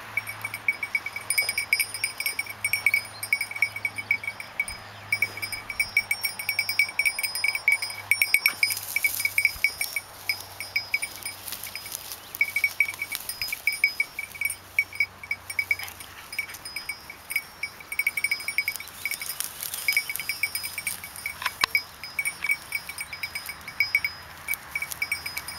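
Small cowbell on a dog's collar clinking rapidly and unevenly as the dog moves and sniffs about, in runs of quick strikes broken by short pauses.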